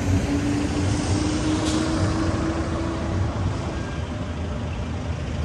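City street traffic: a steady rumble of passing vehicles, with a steady hum that fades out about three seconds in.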